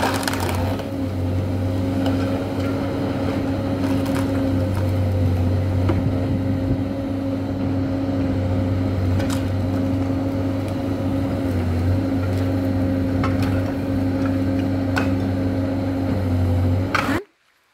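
An engine running steadily at a constant speed, its hum unchanging, until it cuts off abruptly near the end.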